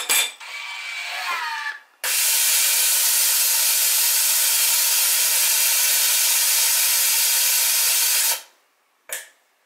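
Witschi ALC 2000 watch pressure tester pulling a vacuum in its test chamber. A click as the dome closes is followed by a quieter rising whir, then a loud, steady hiss of air for about six seconds that stops, and a short puff near the end.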